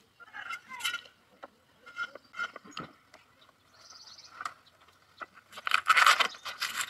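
Food-preparation handling sounds on a wooden table: light taps, knocks and rustles of a bowl and cloth. About five and a half seconds in comes a louder scraping rub of about a second, a wooden cutting board moving on the wooden table.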